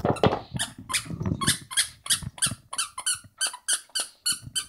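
Plush squeaky dog toy squeaking over and over as a small dog chews it, quick regular squeaks about three a second.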